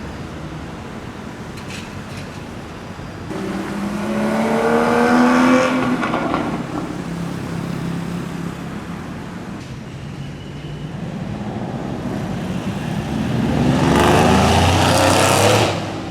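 Sports car engine accelerating hard twice, its pitch rising as it revs up through the gears; the second pull is the loudest and cuts off suddenly near the end.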